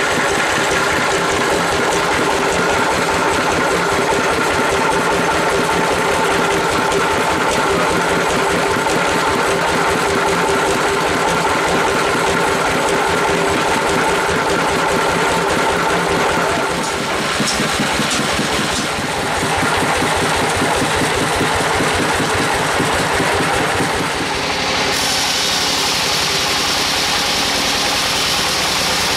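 Band sawmill's engine running steadily with a fast, even chug, its saw band and wheels turning without cutting. About 25 s in the sound changes to a brighter, hissier tone.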